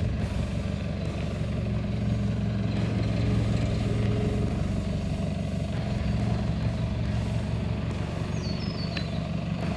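Toyota Prado's engine running steadily while the vehicle is driven on a rough track.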